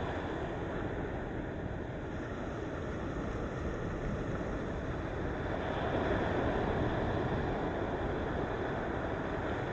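Sea waves breaking and washing on the shore: a steady rush of surf that swells a little about six seconds in.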